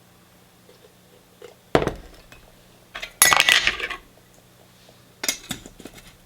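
Glass teapot and its lid clinking and knocking as they are handled: one knock a little under two seconds in, a louder clattering clink around three seconds in, and a couple more knocks a little after five seconds.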